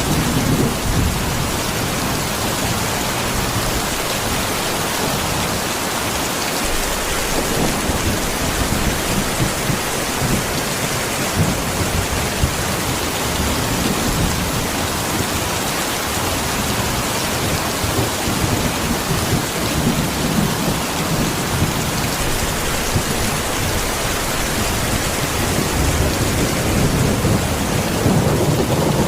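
Heavy rain pouring steadily in a dense, even hiss, with uneven low rumbles coming and going underneath.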